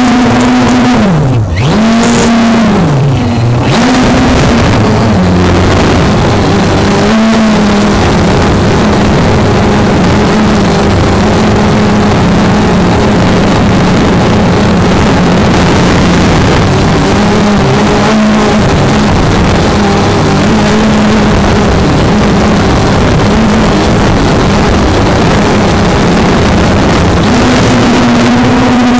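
An engine revving, its pitch dropping and climbing back twice in the first few seconds. It then runs steadily at high speed and rises a little higher near the end.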